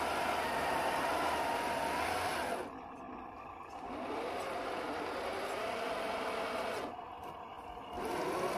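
1/10-scale RC crawler's 550-size electric motor and drivetrain whining under throttle, its wheels spinning in sticky mud: the truck is stuck. The whine drops out twice, and after the first break it rises in pitch as the motor spins back up.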